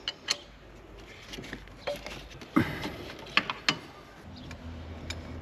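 Scattered metallic clicks and knocks of tools working loose a bracket in a car's engine bay; from about four seconds in, a steady low hum starts under them.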